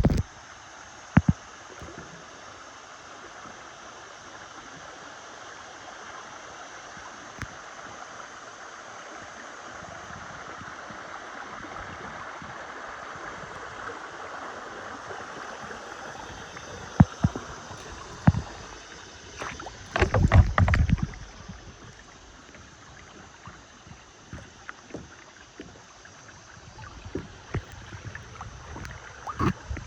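Kayak on a river: the steady rush of moving water, swelling for a while midway, with scattered sharp knocks of the paddle or hands against the kayak hull. About twenty seconds in there is a louder cluster of knocks and thumps.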